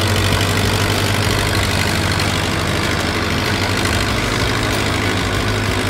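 Engine sound effect for a toy wheel loader: a heavy machine's engine running steadily, a low hum with hiss over it.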